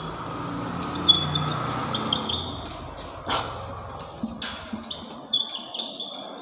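Whiteboard marker squeaking in short strokes across the board as words are written, with a couple of sharp taps of the marker about a second apart midway.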